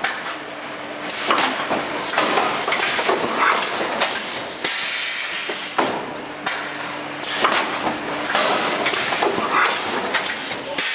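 Thermoform fill-seal packaging machine (OPACK QT 1008) running through its cycle: repeated hisses of compressed air and sharp metallic clacks, coming again every second or so.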